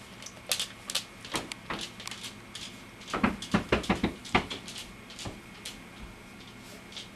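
A run of light clicks and knocks, bunched most thickly about three to four and a half seconds in.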